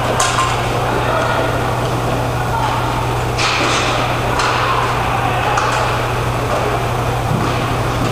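Roller hockey play on a plastic sport-court floor: a few sharp clacks of sticks and puck over a steady low hum and the general noise of inline skates rolling.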